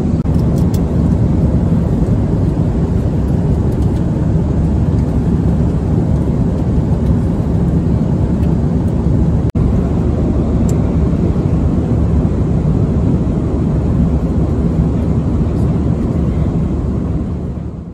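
Steady drone inside the cabin of an Airbus A340-300 airliner in cruise, the mix of rushing airflow and engine noise heard from an economy seat. It cuts out for an instant about halfway through and fades away at the end.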